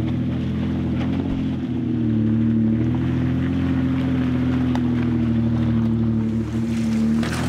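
A 4x4 SUV's engine pulling steadily at low revs, its pitch wavering a little as it crawls up a steep rocky trail, with a few faint clicks of stones under the tyres.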